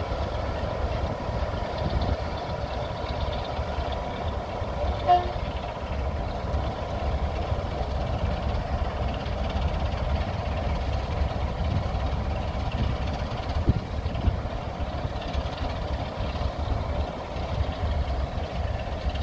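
British Rail Class 31 and Class 26 heritage diesel locomotives running at low revs: the Class 31 creeps in alongside the idling Class 26 with a steady low diesel rumble. A brief toot comes about five seconds in, and a single knock is heard a little past the middle.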